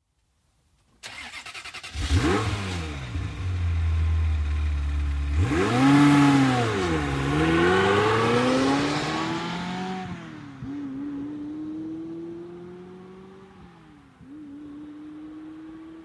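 Ferrari F355 GTB's 3.5-litre V8 being started: the starter cranks for about a second, then the engine catches with a sharp rev flare. It is revved twice, rising and falling, and then settles to a steadier idle.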